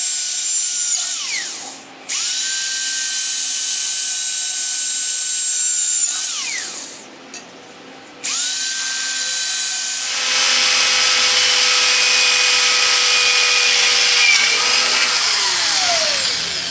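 Electric drill with a small twist bit boring pilot holes through 16-gauge steel plate, in three runs. Each time the motor whines at a steady pitch, then winds down as the trigger is released: about a second in, about six seconds in, and near the end. A few light clicks come in the pause before the third run, which is louder, with more cutting noise from the bit in the steel.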